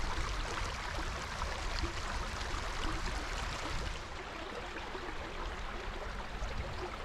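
Small mountain stream running over rocks: a steady rushing splash, with a low rumble underneath.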